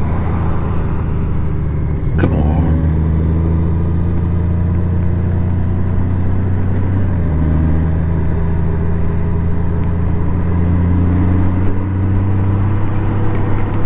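Honda Gold Wing motorcycle engine running steadily on the road, a low drone that shifts slightly in pitch a couple of times. There is a single sharp click about two seconds in.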